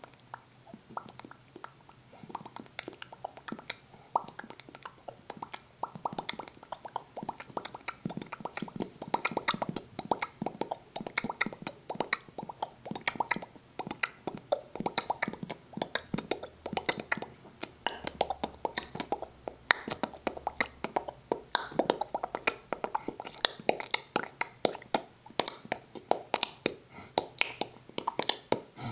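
A man beatboxing close to the microphone: a fast, unbroken run of percussive mouth clicks and pops. It starts quiet and grows clearly louder about a third of the way in.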